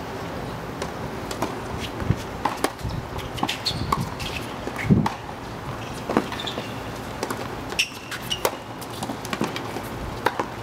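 Tennis rally on an outdoor hard court: a string of sharp hits of racket on ball and ball bounces at irregular intervals, the loudest about five seconds in, with quick footsteps on the court.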